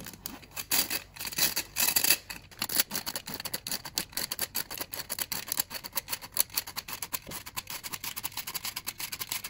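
Hand-operated metal flour sifter being worked to sift cake flour and sugar, its wire agitator scraping over the mesh in a steady run of rapid clicks, several a second.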